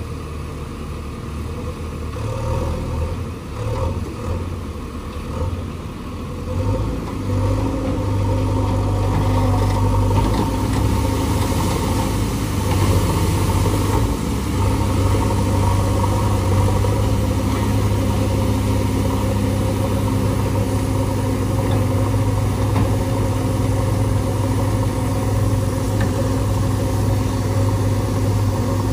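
Heavy diesel engine running, uneven at first and then picking up to a louder, steady higher speed about seven seconds in, held there for the rest of the stretch.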